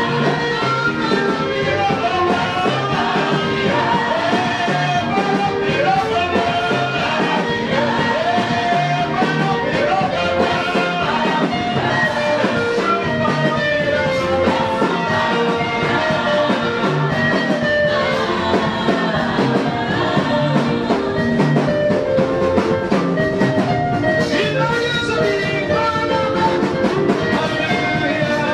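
Live church worship song: a lead singer on a microphone and a choir singing over amplified backing music with a steady beat.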